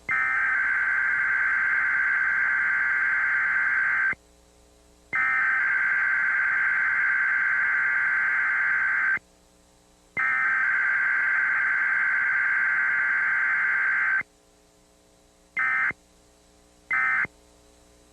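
Emergency Alert System digital data bursts (SAME header codes). Three long bursts of data tones, each about four seconds with a second's gap, then, from about fifteen seconds in, short end-of-message bursts: two of them and the start of a third.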